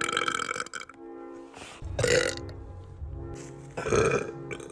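A young woman burping loudly: a long burp trails off in the first second, then two shorter burps follow about two seconds apart. Background music plays under them.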